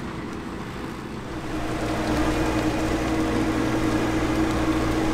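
Trailed Grimme potato harvester and its tractor running with a steady mechanical hum while lifting potatoes. A steady tone comes in and the sound grows louder about a second and a half in.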